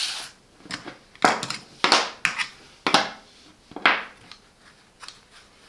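Packaging and the tool being handled during unboxing: a series of short rustling and scraping noises, one every half second to a second.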